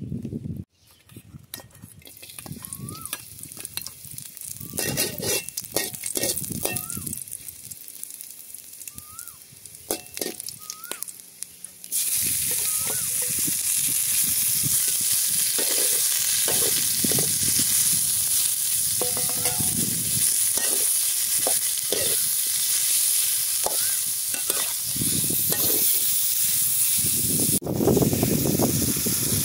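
Pork belly cubes hit a hot steel wok about twelve seconds in and start sizzling loudly and steadily, with a metal spatula scraping and stirring them. Near the end, water poured from a bottle into the wok briefly changes the sizzle to a fuller, lower hiss.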